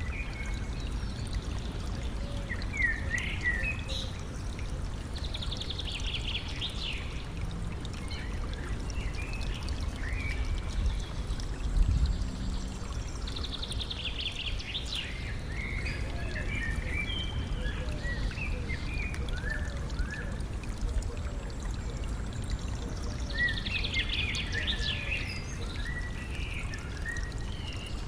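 Stream water flowing and trickling steadily, with birds singing in short bouts of chirps over it. A brief low thump about halfway through.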